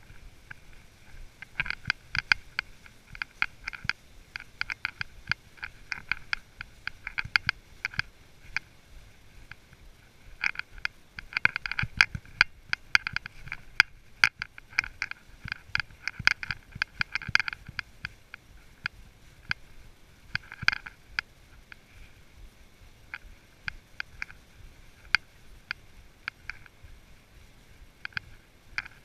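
A horse walking on a trail covered in dry fallen leaves: rapid, irregular clicks and crunches from its hooves and tack. They come in busy spells through the first two-thirds and thin out to scattered clicks near the end.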